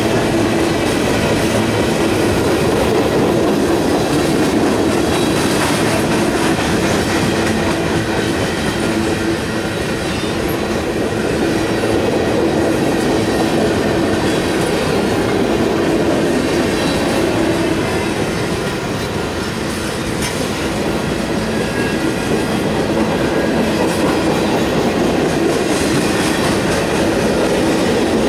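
Freight train's covered hoppers, boxcars and tank cars rolling past close by at a steady speed: a continuous rumble of steel wheels running on the rails.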